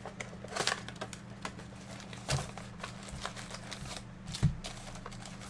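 Trading-card boxes and packs being handled and opened: scattered crinkles, taps and clicks of cardboard and pack wrappers, with a few soft thumps, the loudest about four and a half seconds in.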